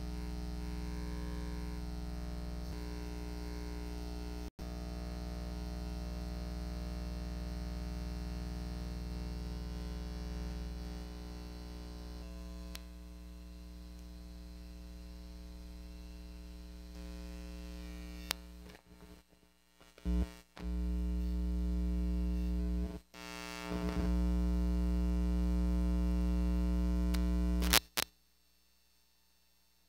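Steady electrical buzzing hum with many overtones, broken by a few brief dropouts in the second half and cutting off suddenly near the end.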